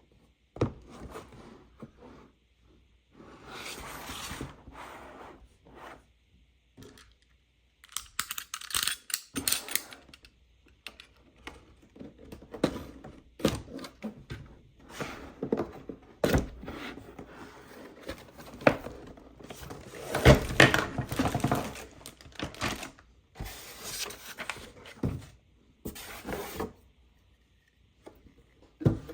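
A toy air hockey set being unboxed by hand: irregular rustling, scraping and clicking of packaging and plastic parts, with a few sharp knocks.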